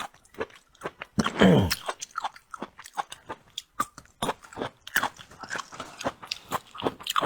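Close-miked chewing: a person crunching and chewing food, with many short mouth clicks. About a second in there is one louder, brief pitched sound that falls in pitch.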